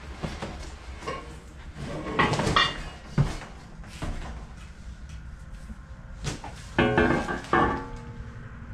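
Powder-coated steel parts of a Harbor Freight motorcycle lift being handled and pulled out of a cardboard box: cardboard scraping and rustling with metal knocks and clanks. The loudest handling comes about two seconds in, with a sharp knock just after, and again near seven seconds, where the metal briefly rings.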